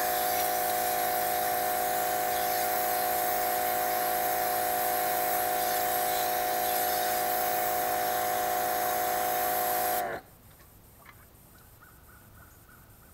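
Pressure washer running steadily, its motor and pump whining under a hiss of spray as it blasts water against a plastic container; it shuts off suddenly about ten seconds in.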